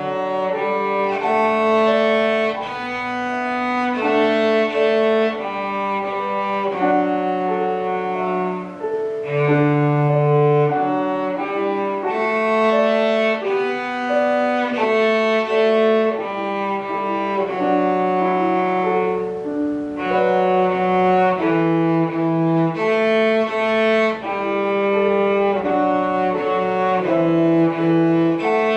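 A cello plays a bowed melody of sustained notes in phrases, accompanied by a piano.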